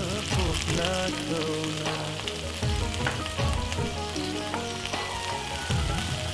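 King prawns and chopped garlic sizzling in oil in a nonstick pan, stirred with a wooden spatula near the end, under background music with a melody.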